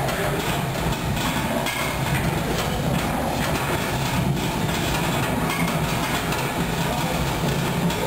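Wooden reel of MaxCell fabric innerduct turning on its metal pipe axle as the innerduct is pulled off by hand: a continuous rumbling rattle with faint clicks.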